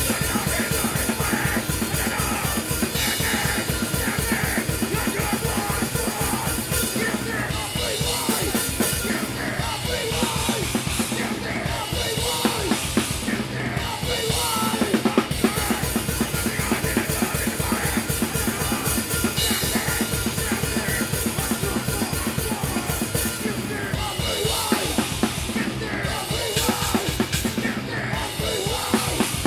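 Drum kit played fast and hard in a live hardcore punk song, close-miked and loudest in the mix: rapid bass drum and snare strokes under Zildjian cymbal crashes, with the rest of the band behind. The cymbal wash swells and drops back between sections.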